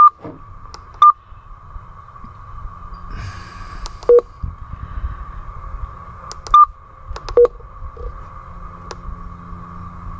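Radioddity QT60 ten-meter radio's keypad beeps as its front-panel buttons are pressed: five short, loud beeps, three higher and two lower in pitch, spaced irregularly. The beep is being stepped through the menu to be turned off.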